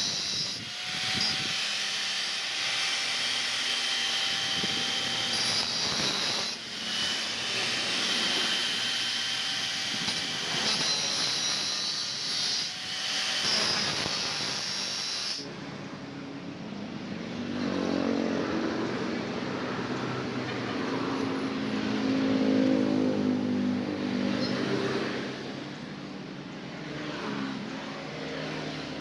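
Power tool cutting steel, a steady hissing whine with high-pitched tones. About halfway in the sound changes abruptly to a lower, duller machine running.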